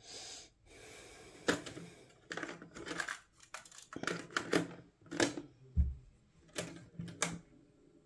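Plastic clicks and clatter of a Panasonic RX-C45LE boombox's cassette deck being worked by hand: the door opening, a compact cassette lifted in the well and the door shutting, as a string of separate sharp clicks with one duller thump near the end.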